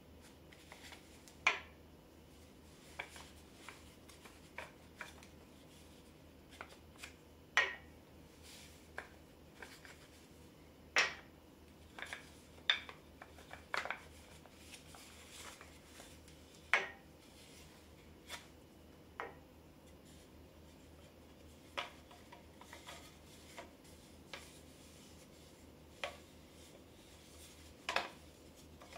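Light, irregular wooden clicks and knocks, with soft rubbing, as a turned wooden sphere with a loose captive cube inside is handled and turned over in the hands; the cube knocks against the inside of the shell. The knocks are spaced a few seconds apart.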